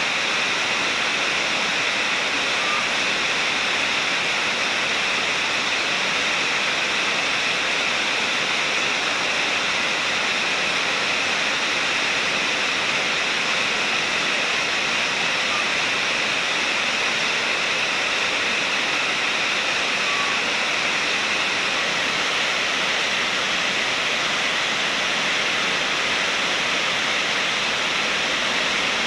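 Rain falling steadily: an even, unbroken hiss.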